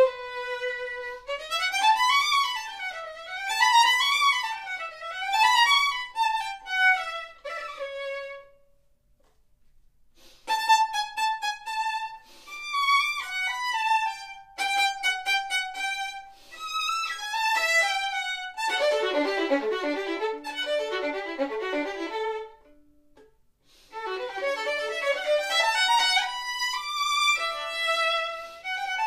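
Solo violin played unaccompanied, with fast runs sweeping up and down. It breaks off twice for a second or two, and a stretch of lower, fuller-sounding notes comes in the middle.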